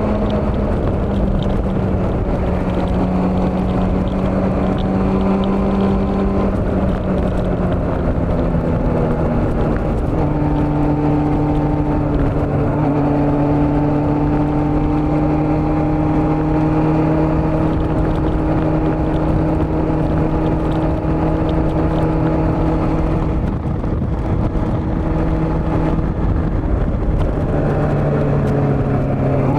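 Old Honda CB400 motorcycle engine running under way, with wind rush over an even noise. The engine note holds steady for long stretches and drops in pitch in steps, about a quarter of the way in and again near the end.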